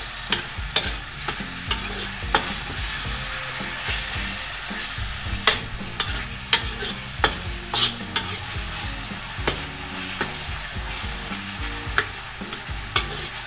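Ground pork, onion and garlic sizzling in a thin stainless-steel wok while a metal ladle stirs and scrapes through them, with repeated sharp clinks of the ladle against the wok at irregular intervals.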